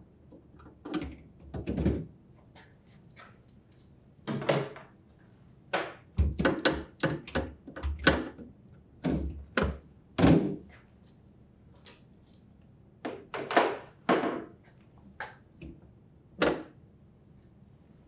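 Glass refrigerator shelves being lifted, unhooked from their slotted wall rails and slid out: a series of knocks, clicks and clatters in several bursts, the loudest about ten seconds in.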